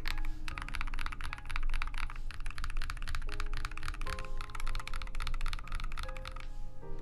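Fast, continuous typing on a custom mechanical keyboard built to sound soft and creamy, with music playing underneath.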